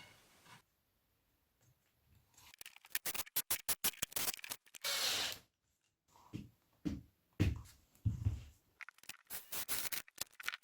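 A run of short, sharp clicks, a brief hiss about five seconds in, then scattered low knocks and more clicks.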